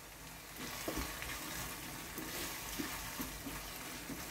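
A tomato and onion sauce sizzling steadily as it fries in a frying pan. There are a few faint light scrapes as a wooden spatula stirs it near the end.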